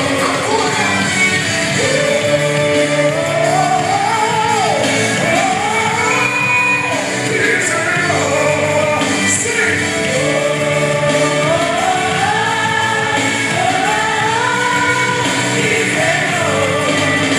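A loud recorded gospel song: a singer's melody rising and falling over choir-style backing and steady held chords.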